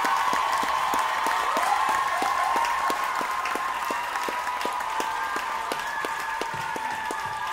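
Audience applauding, with clapping in time on an even beat of about four claps a second.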